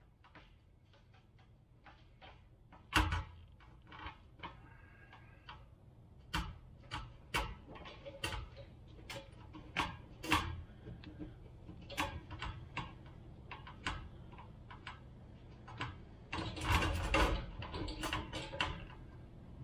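Irregular light clicks and taps of plastic and metal as a replacement fuel pump module is handled with gloved hands over the fuel tank opening. A denser run of handling noise comes about three-quarters of the way through.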